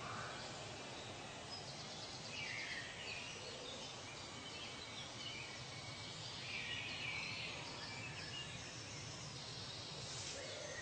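Forest ambience: several birds calling and chirping here and there over a steady background hiss.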